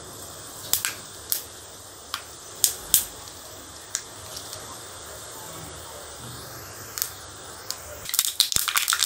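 Mustard seeds heating in a little oil in a small tempering pan on a gas burner, giving single pops every second or so, then bursting into rapid crackling about a second before the end as the oil comes up to heat for the tadka.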